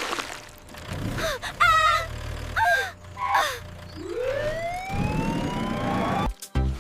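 Cartoon sound effects: a few short whistle-like pitch bends, then one long rising whistle like a siren winding up, over a low steady hum. It cuts off suddenly near the end.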